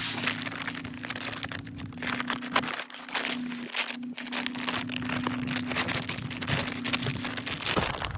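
A plastic feed bag being cut open and handled, with dense irregular crinkling and crackling.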